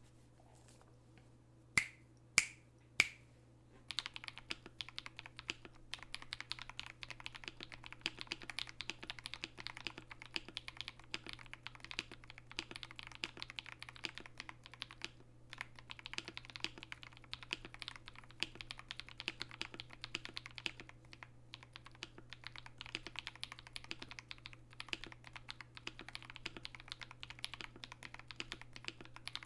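Three sharp, ringing clicks about half a second apart, then steady continuous typing on a KBD67 Lite 65% mechanical keyboard. Its Akko CS Ocean Blue switches are lubed with Tribosys and its stabilizers holy-modded, with no stabilizer rattle.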